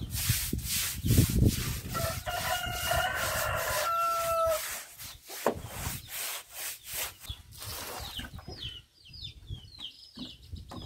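Stiff broom scrubbing a wet floor in quick back-and-forth strokes. About two seconds in, a rooster crows once. Near the end, chicks peep in a quick run of short falling chirps.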